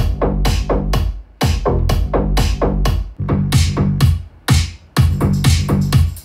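Electronic instrumental music with a drum-machine beat: regularly repeating plucked or struck synth notes over a sustained bass, the pattern getting busier about five seconds in.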